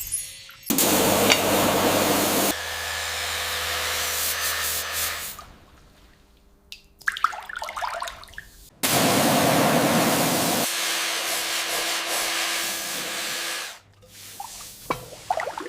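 A motor-driven workshop tool at work, a steady hiss with a low hum, heard in several short clips that start and stop abruptly. Quieter stretches of small clicks and scraping lie between them.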